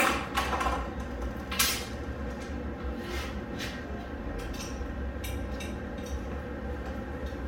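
Metal exhaust parts clanking on a steel checker-plate workbench: two sharp clanks, one at the start and one about a second and a half in, then lighter metallic clicks as the exhaust bolts are handled.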